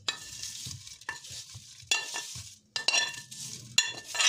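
Metal spoon scraping and knocking against a frying pan in a run of short strokes as shrimp fried in butter are scooped out, over a faint sizzle from the hot pan.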